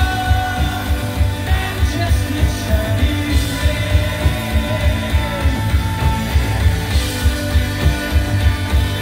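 Live rock band playing an instrumental passage: electric guitars and bass guitar over a drum kit keeping a steady beat of about three hits a second.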